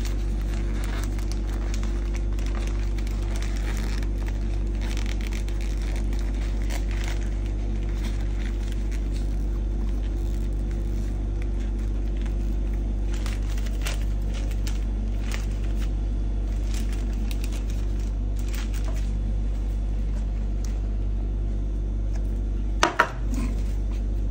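Sheets of white wrapping paper rustling and crinkling as they are handled around a bubble balloon bouquet, over a steady low electrical hum. A single sharp knock comes near the end.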